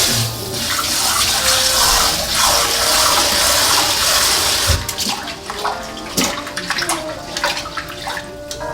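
Water running for about five seconds, then a run of light clicks and knocks.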